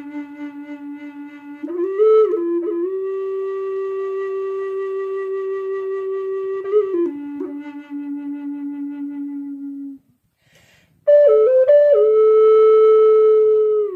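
Solo flute music: slow, long held notes with quick grace-note flourishes between them. After a short pause about ten seconds in, a louder phrase starts higher and settles onto another long note.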